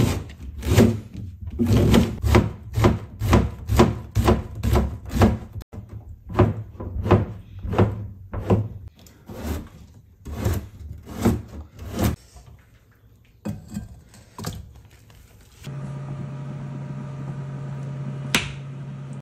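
Kitchen knife slicing through a green onion and then a carrot onto a plastic cutting board, one crisp knock about twice a second, thinning out after about twelve seconds. In the last few seconds a steady low hum takes over as a pot of chicken breast boils on the cooktop, with one sharp tick near the end.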